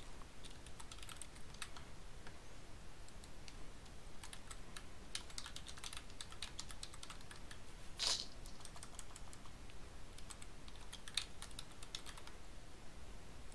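Computer keyboard typing: irregular runs of key clicks, with one louder, longer keystroke about eight seconds in.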